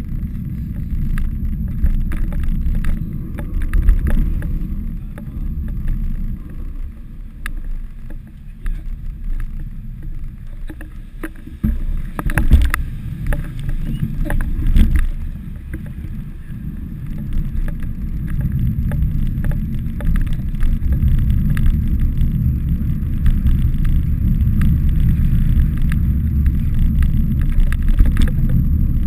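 Wind buffeting the microphone of a bicycle-mounted action camera while riding: a steady low rumble with scattered clicks and knocks, steadier and louder in the second half.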